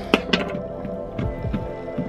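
A kitchen knife knocking several times on a wooden cutting board as raw beef is cut into small pieces, over steady background music.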